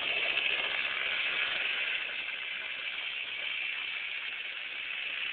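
Kid kart's small engine running as the kart drives around the yard, heard from a distance as a steady drone that grows a little fainter after about two seconds.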